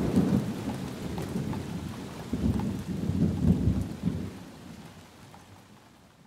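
Thunderstorm: thunder rumbling over steady rain, with a long roll of thunder about two and a half seconds in, then the whole storm fades out near the end.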